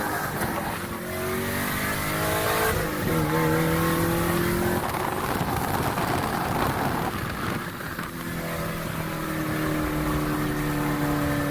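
2011 Camaro SS's 6.2-litre V8, with catless long-tube headers and no muffler or resonator, pulling hard from inside the car: the engine note climbs in pitch, breaks about three seconds in at a gear change, then holds and slowly falls over the last few seconds.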